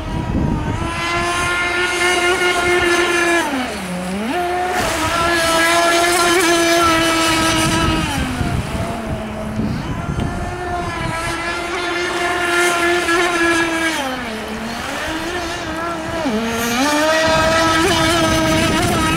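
Engine of a Delta Force CMB 91RS radio-controlled racing catamaran, running hard at high revs with a high-pitched whine. Its pitch drops briefly and climbs back about four seconds in and twice more near the end.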